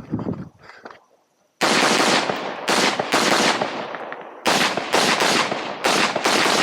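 Semi-automatic competition rifle with a muzzle brake firing about eight rapid shots in quick pairs and groups, each shot loud with a long echoing tail, after a brief silence about a second in.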